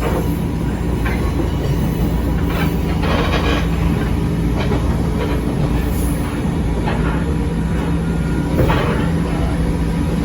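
Echizen Railway 5001-series electric railcar running along the track: a steady low rumble and hum, with sharp wheel clacks over rail joints about once a second.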